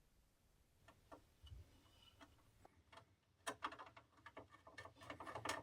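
Faint clicks and taps of small plastic parts being handled and fitted together. A few scattered clicks come first, then a quick run of clicks and taps a little past halfway.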